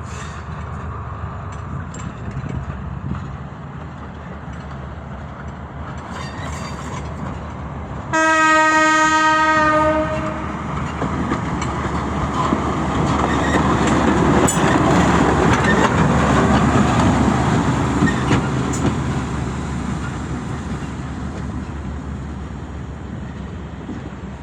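TGM23V48 diesel shunting locomotive running on a siding. It sounds its horn in one held chord for about two seconds about eight seconds in. Its engine and rail noise then grow louder as it passes and fade away near the end.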